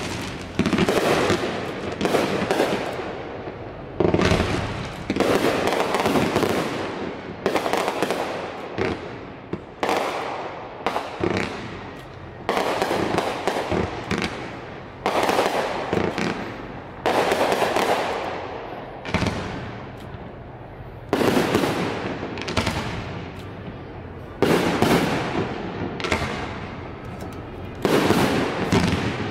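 Aerial fireworks shells bursting in rapid succession, a loud boom every second or two, each trailing off over about a second.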